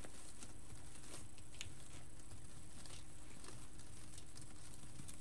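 Light rustling and crinkling of deco mesh being scrunched and tucked into a wreath frame by hand, with scattered small crackles and clicks.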